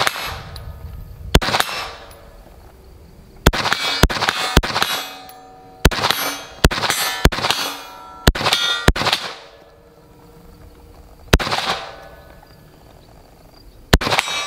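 Sig Sauer MCX Spear LT 5.56 rifle firing about a dozen single shots at an uneven pace, some only about half a second apart, each shot followed by a short ringing tail.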